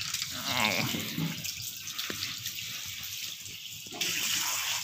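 Water running from a wall tap into a tiled ablution trough, a steady hiss that gets louder and brighter about four seconds in.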